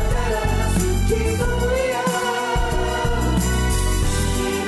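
A mixed choir of men's and women's voices singing an upbeat song over instrumental backing with a steady bass line.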